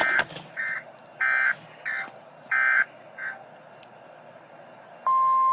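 Weather radio emergency alert: six short, uneven buzzy bursts of SAME data tones, then about five seconds in the steady, single-pitch warning alarm tone starts.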